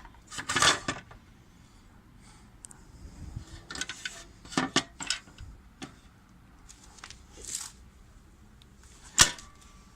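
Metal clicks and knocks from a miter saw stand's mounting bracket and its latch being handled and fitted onto the stand. Scattered strikes, with a few together about half a second in, several more around the middle, and one sharp loud click near the end.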